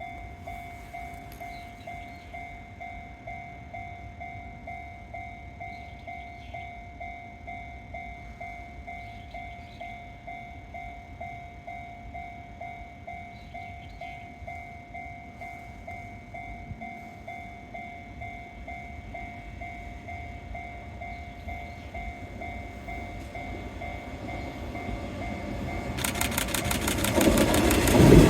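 Japanese level crossing warning bell ringing steadily at about two strokes a second. Near the end a Nishitetsu 5000-series train arrives at the crossing: its running noise swells quickly and the wheels start clacking over the rail joints.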